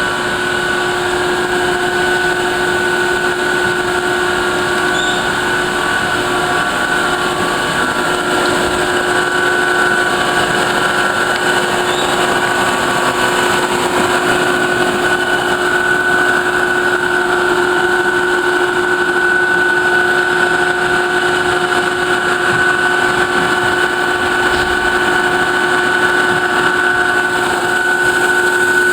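Farrel CNC roll grinder running: a steady machine drone with a constant high whine, unchanging throughout.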